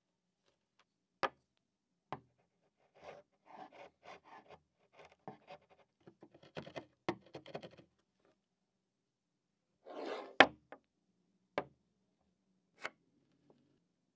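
A half-inch chisel paring pine, a run of short scraping cuts through the wood, with a few sharp knocks of wood and tool against a tabletop; the loudest knock comes just after a longer scrape near the middle.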